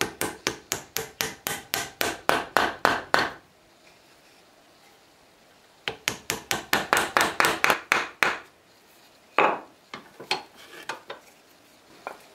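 Wooden carver's mallet tapping wooden dowels into drilled holes in a wooden block, wood on wood. Two runs of quick even taps, about four or five a second, with a pause of a couple of seconds between them, then a few scattered knocks.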